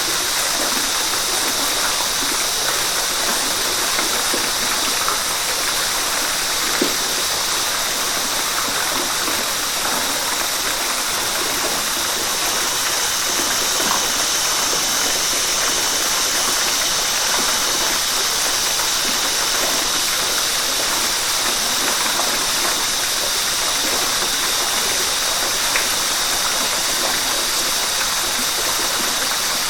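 River water flowing, a steady rushing hiss.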